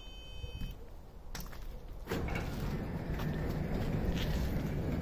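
A short electronic beep, then a click, and about two seconds in the automatic sliding gate's electric gear-motor drive starts: the corrugated-steel gate rolls along its steel rack with a steady mechanical running noise.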